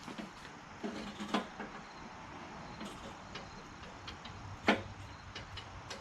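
Scattered clicks and knocks of metal parts being handled, with a brief clunk about a second in and one sharp knock shortly before the end; a low hum comes in around the same time as that knock.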